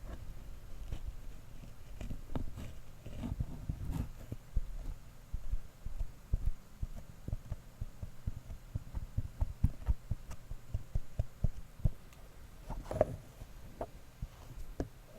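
Close handling noise on a Zoom H5 recorder's microphone: soft, irregular low taps and thumps, coming thick and fast through the middle, with a brief brighter rustle near the end.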